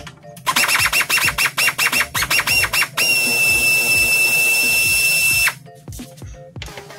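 Air impact wrench hammering on a seat-mounting bolt under the car's floor pan, then spinning freely with a steady high whine as the bolt breaks loose, stopping a couple of seconds later.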